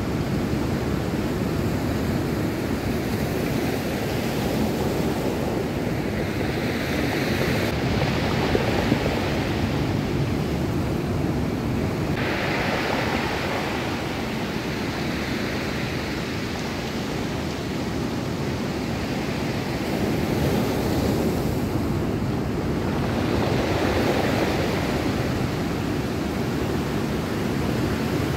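Ocean surf breaking and washing up a stony beach, swelling and easing every several seconds in a steady rush.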